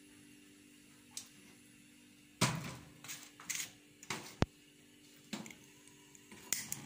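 Kitchen handling noise: several sharp knocks and clatters over a low steady hum, the loudest about two and a half seconds in and a sharp knock about four and a half seconds in.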